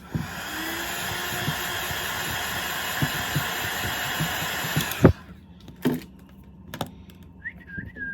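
Hot-air blower running steadily for about five seconds, of the kind used to warm a phone screen and soften its adhesive before removal. It switches off with a sharp click, followed by a few small taps and clicks.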